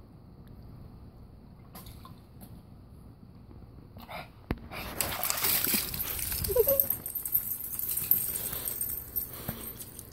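Water sloshing and splashing in a plastic kiddie pool as a puppy climbs out, with water spilling over the rim onto patio paving. It starts about five seconds in, after a quiet stretch, and runs for about four seconds.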